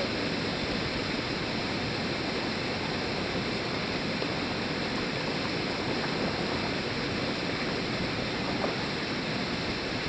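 Waterfall pouring down a granite slab into a rock pool: a steady rushing of water.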